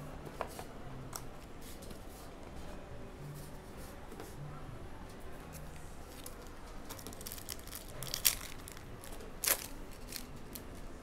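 A 2021-22 Court Kings basketball hobby card pack's foil wrapper is handled and crinkled, then torn open by hand, with two sharp rips a little over a second apart near the end.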